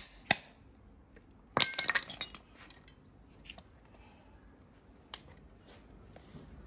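Farrier's steel hand tools clinking on a horse's shoe and hoof. Two sharp metallic taps come right at the start, then a quick run of ringing clinks about a second and a half in, and a few lighter clinks after.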